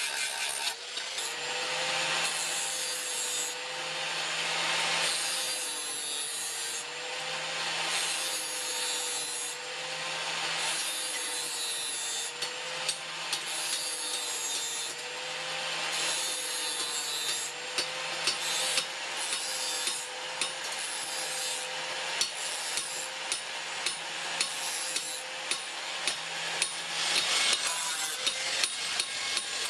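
Rhythmic rasping strokes on clutch-plate steel, about one every one and a half to two seconds, over a steady low hum. Sharp clicks become more frequent in the second half.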